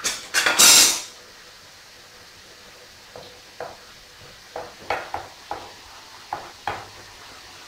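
A short, loud rushing noise near the start. Then, from about three seconds in, irregular light clicks and knocks of a wooden spatula stirring pepper-and-tomato chakchouka in a frying pan.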